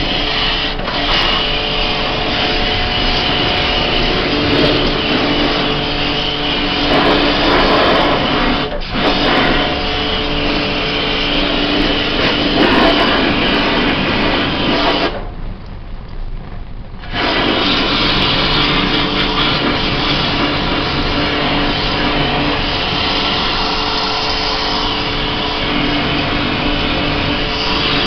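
Pressure-washer water jet spraying the wet coil and blower wheels of an air conditioner's indoor unit, a steady hiss of spray over a constant motor hum. The spray cuts out for about two seconds around the middle, then starts again.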